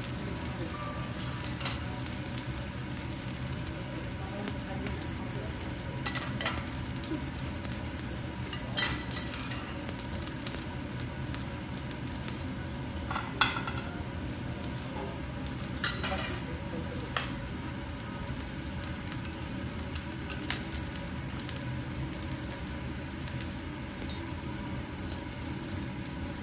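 Salmon and a round slice frying on a steel teppanyaki griddle, a steady sizzle, with a few sharp metal clinks of spatula and utensils against the griddle and plate.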